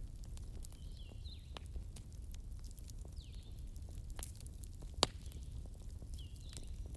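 Wood fire crackling with scattered sharp pops, one much louder pop about five seconds in, over a low steady rumble. Short, faint chirping calls sound now and then alongside it.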